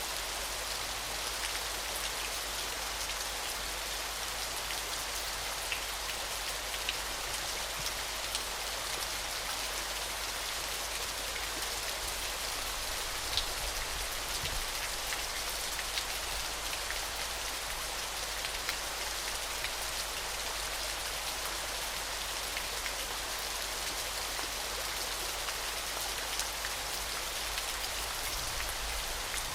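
Falling, splashing water: a steady, bright hiss with scattered sharper drips and splashes, over a low rumble.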